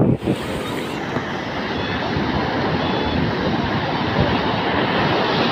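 Ocean surf breaking and washing in, a steady rushing noise that grows slightly louder toward the end.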